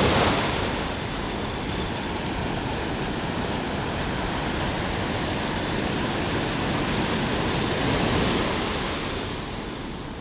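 Surf washing up the beach: a wave breaks and rushes in at the start, loudest there, then a steady rush of foaming water that swells again about eight seconds in as the next swash comes up the sand.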